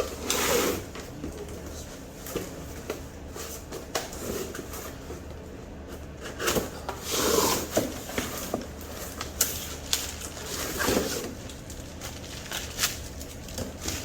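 Cardboard boxes and packaging being handled: irregular scrapes, rustles and a few sharp knocks, over a steady low hum.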